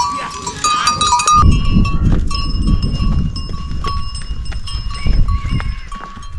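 Small bells on walking pack horses ringing irregularly, a clear high tone struck again and again. From about a second and a half in, a low rumble runs beneath the bells.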